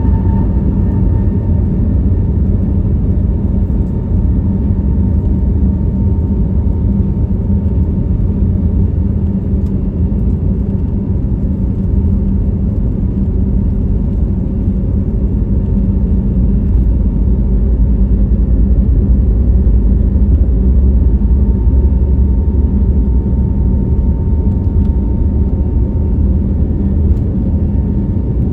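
Steady engine and airflow noise inside the cabin of an Airbus A321neo airliner: a loud, even rumble with a faint steady whine.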